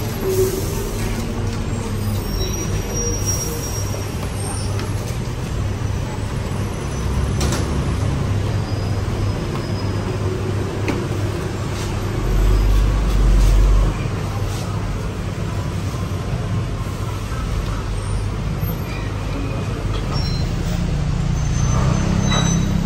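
Steady road-traffic rumble from a busy city street, with a louder low rumble lasting about two seconds midway as a heavy vehicle goes by.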